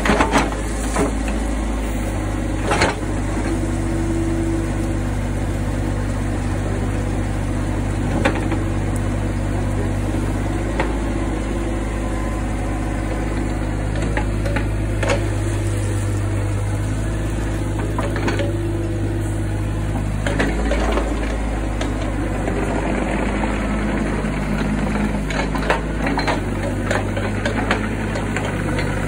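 Mini excavator's diesel engine running steadily as it digs, with a few sharp clanks scattered through as the steel bucket works the soil and rocks.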